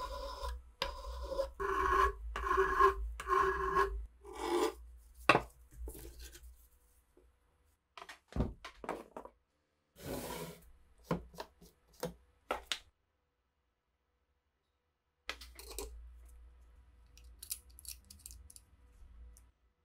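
Hand file drawn back and forth across a steel rifle part, about six rasping strokes in the first four seconds. A few sharp knocks follow, then softer rubbing near the end as a cotton swab is worked over the metal.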